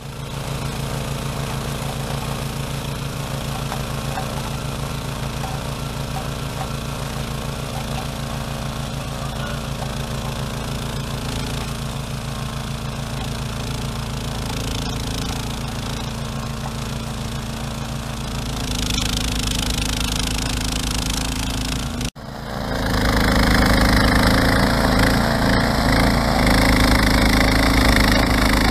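Snowblower engine running steadily under load while clearing deep snow. It grows louder about two-thirds of the way through, with a brief dropout just before.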